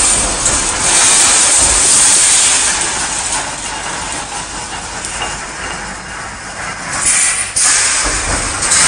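Automatic wire mesh welding line running: a loud, dense mechanical noise with no clear tone, easing for a few seconds in the middle and swelling again about seven seconds in.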